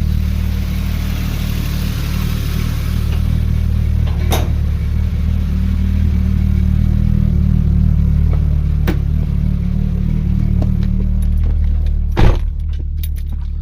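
Turbocharged 4.0-litre Ford Intech SOHC inline-six idling steadily. A few sharp clicks sound over it, the loudest one near the end.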